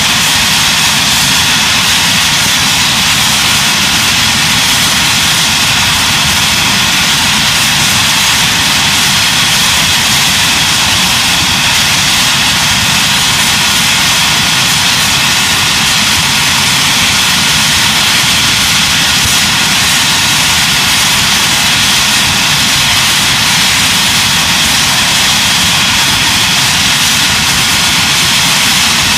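Lightning jet fighter's engines running loud and steady, a high whine over a rush of jet noise.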